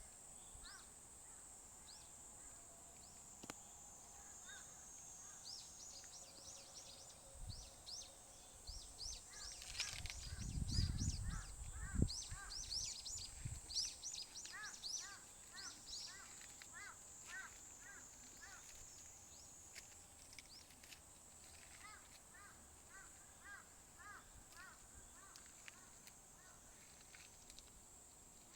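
Birds calling outdoors in quick series of short chirps, over a steady high-pitched drone. A low rumble swells briefly about ten seconds in.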